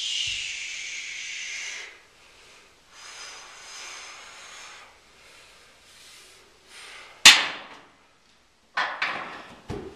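Hissing breaths of a man straining to balance on a stability ball while lifting small weight plates: a strong breath at the start and a fainter one a few seconds later. Then a sharp knock about seven seconds in and two lighter knocks near the end.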